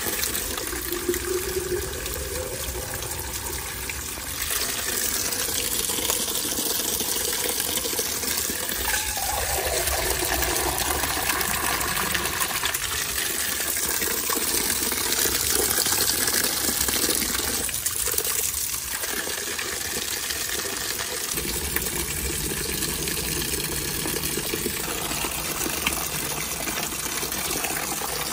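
Thin stream of water pouring off a rock and splashing steadily onto wet stones, running into a plastic water bottle held under the flow at the start.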